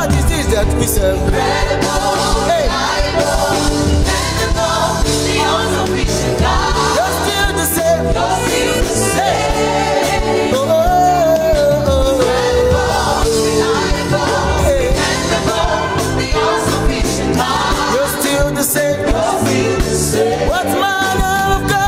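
Gospel worship song: a male lead singer with a group of backing singers over instrumental backing.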